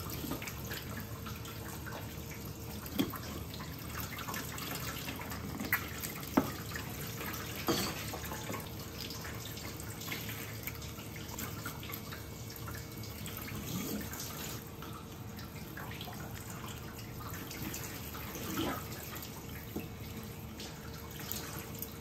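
Water running from a tap into a stainless steel kitchen sink, a steady hiss. A few sharp knocks of a knife against a wooden cutting board break through it as a fish is filleted.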